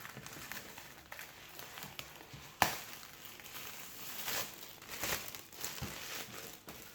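Plastic wrapping crinkling and rustling as it is peeled off an iPad box, with a sharp snap about two and a half seconds in.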